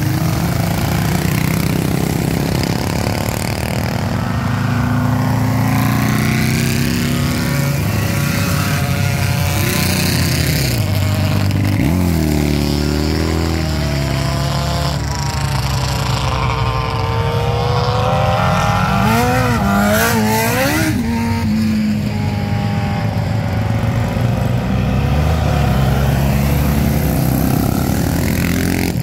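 Classic racing motorcycles and sidecar outfits accelerating up a hill-climb course one after another. Their engines rev up through the gears, the pitch climbing and then dropping at each shift, with the sharpest sweeps a third of the way in and again about two-thirds in.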